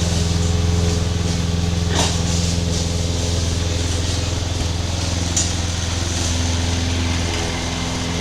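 Small engine of a Murray riding mower or garden tractor running steadily at a constant speed, with a single sharp knock about two seconds in.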